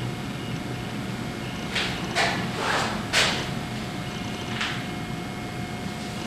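Steady hiss with a faint hum, broken by a handful of short soft swishes or scuffs about two to five seconds in, the kind made by handling a camcorder or moving about while filming.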